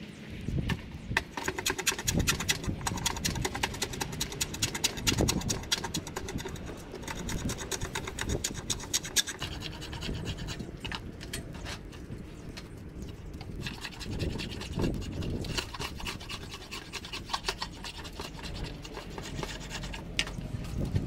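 A two-handled blade shaving bark and wood off a clamped walking-stick blank in repeated scraping strokes, each a quick run of crackles as the shaving peels off.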